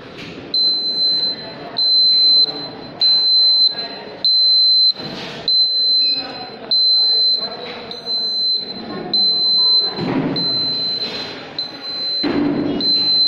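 Small electronic beeper on a model car sounding a high, steady tone in repeated pulses, about one beep a second.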